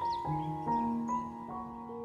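Background film score: a slow melody of held notes, with a new note starting about every half second.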